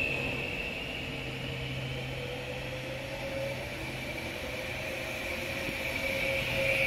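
HŽPP class 6112 electric multiple unit rolling slowly past, its traction equipment giving a steady electric whine with a mid tone that slowly rises in pitch and a low hum. The high part of the whine dips in the middle and swells again near the end.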